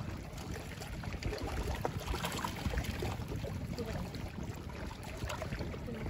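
Gloved hands digging shellfish out of wet mud and rock in shallow seawater: scattered small clicks and wet scraping over a steady low rumble of wind and lapping water.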